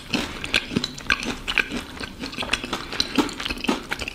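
Crisp crust of a gato patate (sweet potato dumpling) crackling and tearing as it is pulled apart by hand, a string of small irregular crackles and clicks.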